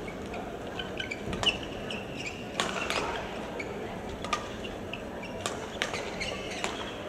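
Badminton rally in men's doubles: rackets striking the shuttlecock in a string of sharp hits, often under a second apart, with shoes squeaking on the court floor.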